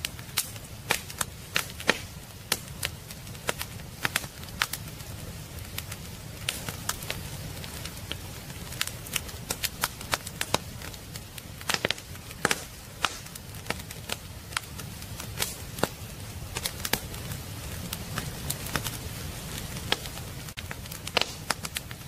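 Firewood burning in a fireplace, crackling with frequent, irregular sharp pops and snaps over a steady low rumble of the flames.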